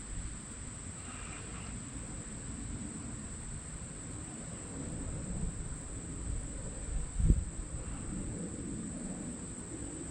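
Steady, high-pitched insect chorus, a continuous even buzz typical of crickets, over a low rumble, with one dull thump about seven seconds in.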